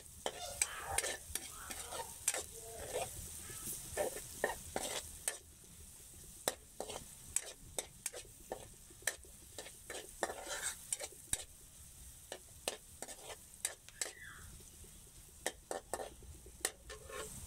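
Metal spatula scraping and clinking against a wok in repeated, irregular strokes while sliced onions fry in hot oil with a steady sizzle.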